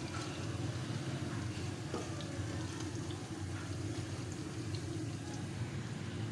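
Pakoras frying in hot oil in a wok, with faint scattered crackles and spits of the oil over a steady low rumble.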